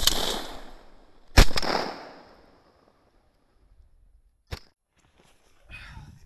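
Two shotgun shots about a second and a half apart, each followed by a long fading echo. A short sharp click comes about three seconds after the second shot.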